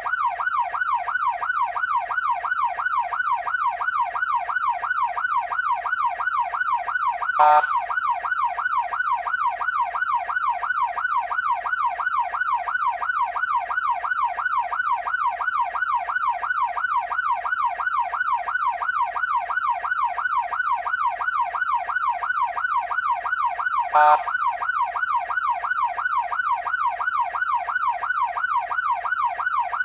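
Electronic emergency-vehicle siren in a fast yelp, its pitch sweeping rapidly up and down over and over. Two brief clicks cut through it, one about a quarter of the way in and one about three-quarters of the way in.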